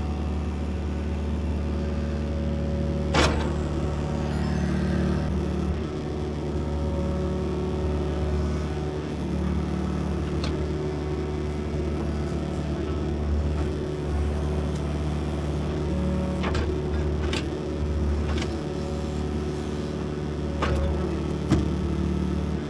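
Excavator's diesel engine running steadily under work, with a few sharp metallic knocks from the machine at work.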